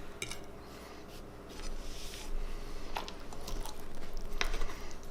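A person chewing and eating food, with a few sharp clicks, one near the start and two in the second half.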